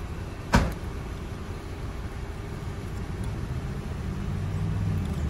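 Steady low rumble of a car heard from inside the cabin, with a single sharp click about half a second in. Toward the end a low hum grows louder.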